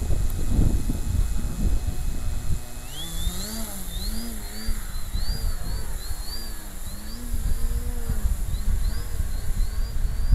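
Multiplex FunCub RC plane's electric motor whining up about three seconds in as it takes off, its pitch then wavering up and down as it climbs away, over gusty wind rumble on the microphone.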